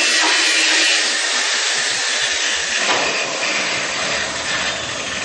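Angle grinder grinding down weld spots on metal: a steady, loud hiss of abrasive on steel over the motor's running tone. The sound changes about three seconds in as the grinder's load shifts.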